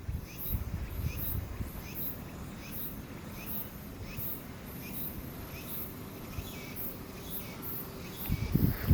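Short high chirping calls repeating evenly, about one and a half a second, over a low rumbling background, with a louder low thud near the end.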